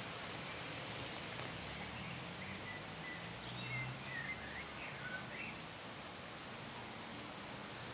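Steady outdoor background hiss, with a small bird chirping several short notes in the middle.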